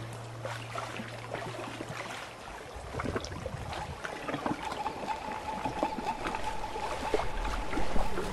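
Water trickling and dripping, with many small drops and splashes. A low steady hum sounds for the first couple of seconds, and a higher steady tone holds from about four seconds in.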